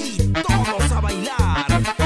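Instrumental tropical cumbia music: a bass line pulsing in a steady rhythm under percussion, with a melody line that bends in pitch.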